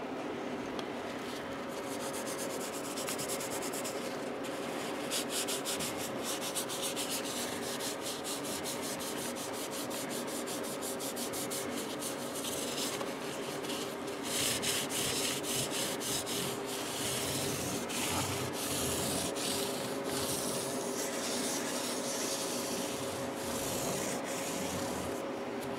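Hand rubbing on the wood of a guitar neck, working in a tinted oil finish: quick back-and-forth strokes in the first half, then slower, broader strokes from about halfway. A faint steady hum runs underneath.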